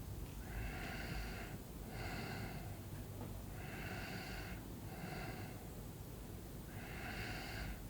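A sleeping person snoring: a longer breath followed by a shorter one, repeating about every three seconds, three times.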